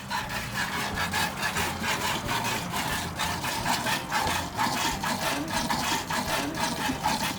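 Milk squirting into a pail as a cow is hand-milked, the streams hissing in a quick, even rhythm of strokes.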